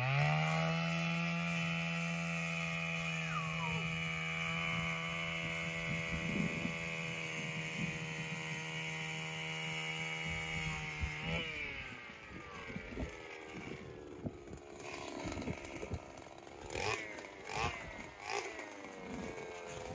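Gas-powered ice auger engine revving up and running at a steady high speed while drilling into lake ice. After about eleven seconds it cuts off, its pitch falling away.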